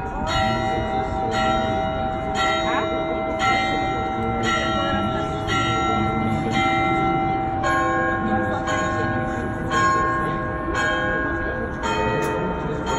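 Cathedral bells ringing in a steady run of strokes, about two a second, each note ringing on over the next. The notes being struck change about eight seconds in.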